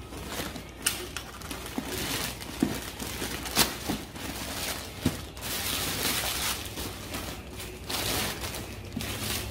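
Plastic courier mailer bag being torn open and its contents pulled out: a run of crinkling and rustling plastic with several sharp crackles as the bag rips.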